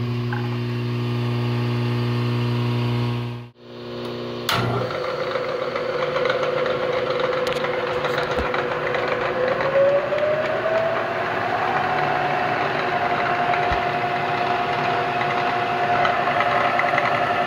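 Phase converter humming steadily, then, after a short break, a vertical milling machine's spindle motor running with a steady whine that rises in pitch about halfway through and then holds.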